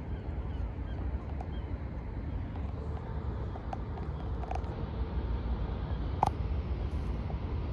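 Steady low outdoor rumble, with a few faint high ticks scattered through it and one sharper click about six seconds in.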